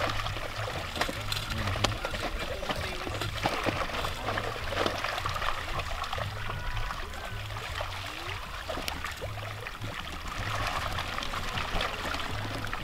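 Tambaqui thrashing in a drawn-up seine net, water splashing and sloshing as they are handled into a sack, with music playing underneath.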